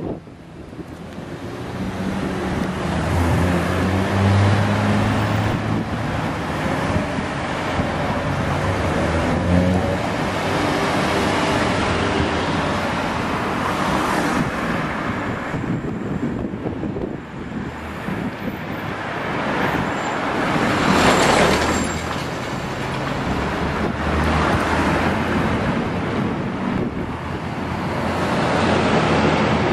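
Road traffic on a suburban street: cars passing one after another, engine hum and tyre noise, with one vehicle passing loudest about two-thirds of the way through.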